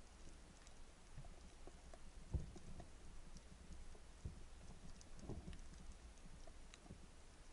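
Faint underwater ambience picked up through a camera housing: scattered crackling clicks, with a few dull low thumps, the strongest about two seconds in.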